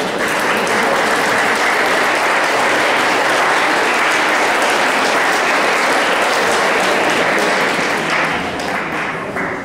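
Audience applause, steady and dense, that dies away near the end.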